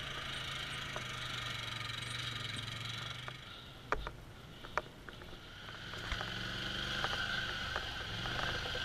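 Polaris Sportsman ATV engine running at low speed as the quad crawls over rock, easing off briefly in the middle and picking up again. A few sharp knocks come around the middle.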